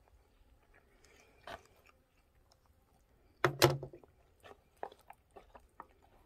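Someone eating from a foil-lined freeze-dried meal pouch with a fork: quiet chewing and small clicks of the fork in the pouch, with a loud crackle of the pouch being handled about three and a half seconds in.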